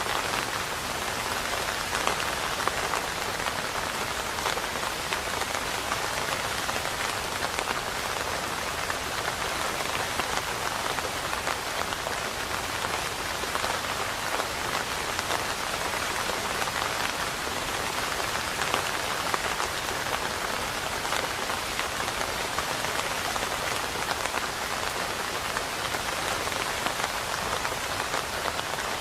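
Steady rain falling, a dense even patter of drops on a hard surface with no thunder.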